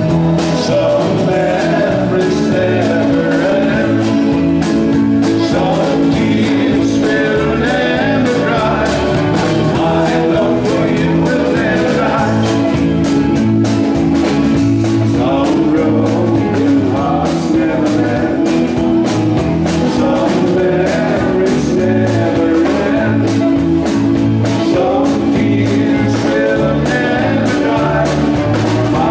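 Live rock band playing with a steady beat: electric guitar, electric bass guitar and drums, with a male voice singing.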